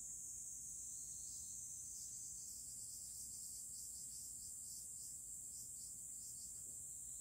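Faint insect chorus: a steady high shrill with rhythmic chirping that starts about a second in and repeats a few times a second. A low steady hum lies underneath.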